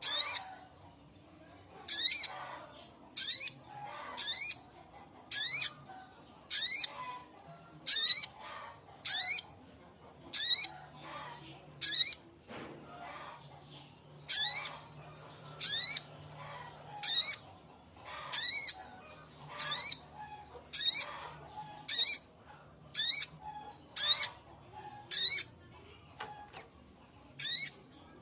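Male sogok ontong (a spiderhunter) calling: short, sharp, high calls repeated about once every second and a quarter, each a quick run of notes dropping in pitch, with a brief pause about halfway through.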